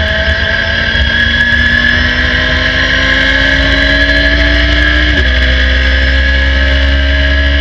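2013 Radical SR3 RS's 1.5-litre four-cylinder engine at full throttle, heard from the cockpit. Its pitch climbs steadily as it revs toward about 8,000 rpm, drops with a quick upshift about five seconds in, then climbs again.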